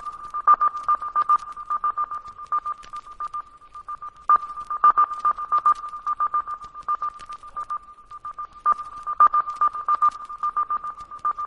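A steady, high-pitched electronic tone that pulses rapidly in clusters, with faint scattered clicks.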